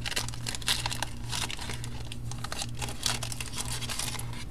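A foil trading-card pack wrapper being torn open and crumpled in the hands: a run of irregular crinkles and crackles.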